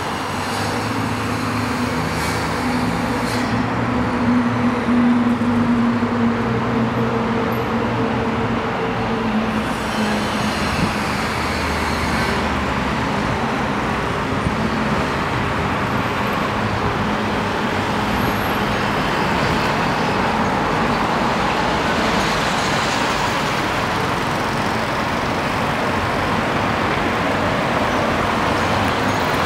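Steady road traffic noise from the elevated expressways and nearby streets, with a vehicle engine's hum standing out for the first dozen seconds.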